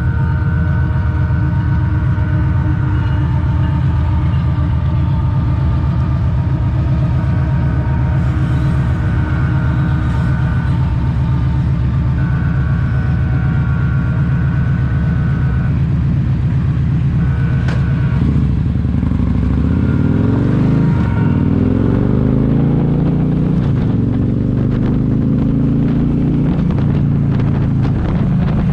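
Vehicle running with a steady drone and thin whining tones over it; about two-thirds of the way through, the pitch starts rising and falling as the speed changes. The noise is laid to the transmission.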